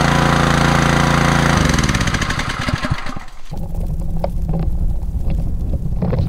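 Small gasoline engine of a portable irrigation water pump running steadily, its note changing about one and a half seconds in. About three seconds in it gives way to footsteps through grass over a low outdoor rumble.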